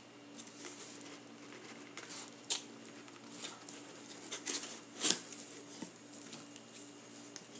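Cardboard shipping box and packing material being handled and opened: scattered rustling and crinkling with a few sharp snaps, the loudest about two and a half and five seconds in, over a faint steady hum.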